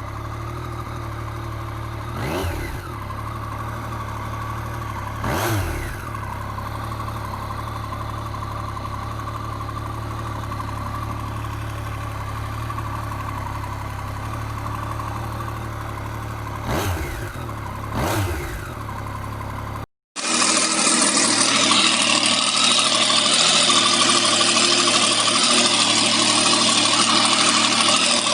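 Yamaha MT-09's three-cylinder engine idling steadily, blipped four times with the revs rising and falling briefly each time. About 20 seconds in, after a sudden cut, a louder steady hissing engine noise takes over.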